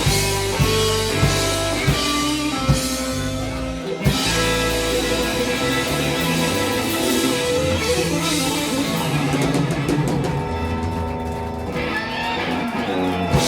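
Rock band playing a ballad live, with guitar and drum kit. Steady drum strokes for the first few seconds, a short break about four seconds in, then long held chords and a last drum hit near the end.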